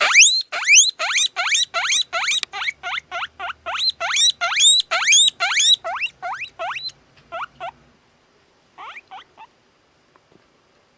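Guinea pig wheeking: a fast run of short, high squeaks, each rising in pitch, about three a second. They thin out after about seven seconds, with a last few near the end.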